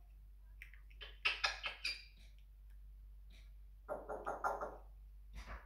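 Pet parrot in its cage calling: a quick run of short, sharp squawks about a second in, then one longer pitched call about four seconds in.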